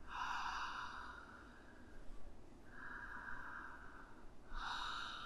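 A woman breathing deeply and audibly through her open mouth as a deliberate breathwork exercise: three long, airy breaths, each about a second, with short pauses between.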